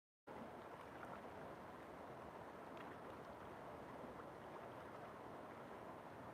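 River water flowing: a steady, even rush, after a brief dropout of silence at the very start.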